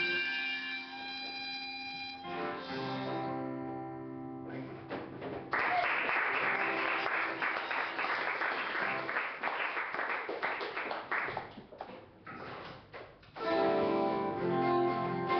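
Acoustic guitar notes ringing, then a harmonica blown for several seconds over the guitar, then guitar notes alone again near the end.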